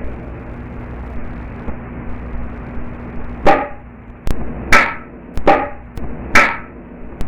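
Loose wooden boards knocking: four sharp, ringing wooden knocks about a second apart, starting about halfway through, with fainter clicks between them.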